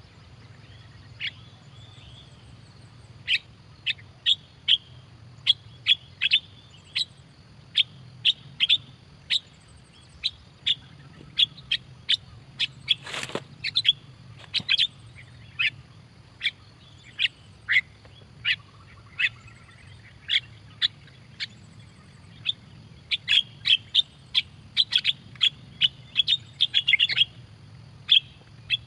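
Starlings (jalak) calling: short, sharp chirps repeated about once a second, bunching into quick runs near the end, over a low steady hum.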